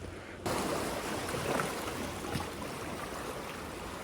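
Steady rush of sea waves with wind noise, starting abruptly about half a second in.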